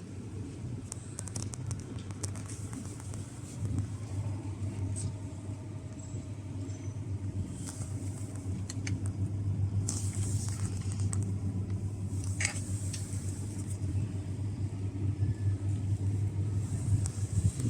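A steady low rumble with a quickly flickering level, and a scattering of faint light clicks and ticks.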